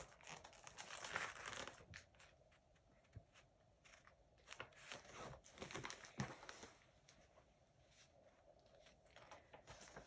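Faint rustling of paper as the pages of a picture book are handled and turned, with a few small clicks and brushes.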